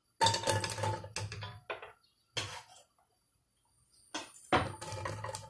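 Chopped onion tipped into a stainless steel pot, the pieces clattering onto the metal bottom in several separate rattles: a longer one about a second in, short ones after, and another longer one near the end.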